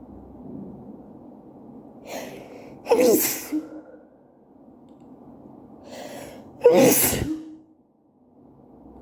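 A woman sneezing twice, about four seconds apart, each sneeze led by a short audible in-breath, while she is sick.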